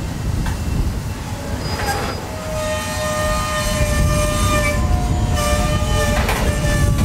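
Freight train rolling slowly past with a steady low rumble. From about two and a half seconds in, the steel wheels squeal against the rails: several thin high tones that come and go. Two brief knocks from the cars are heard, about two seconds in and near the end.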